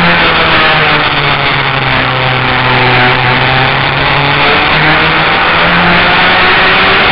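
Race car engine heard from inside the cabin, running hard under load through a turn. Its pitch drops about a second in, holds, then climbs again a little before the five-second mark.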